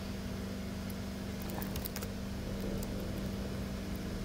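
Steady low background hum with a constant low tone, and a few faint computer mouse clicks about one and a half to two seconds in.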